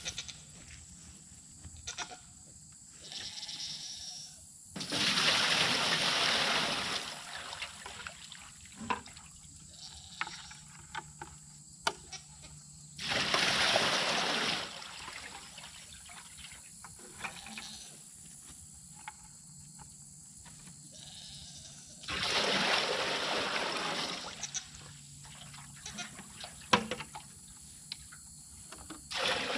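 Water poured from a plastic bucket into a galvanized steel stock tank, splashing into the tank: three pours of about two seconds each, with small knocks of bucket handling between them.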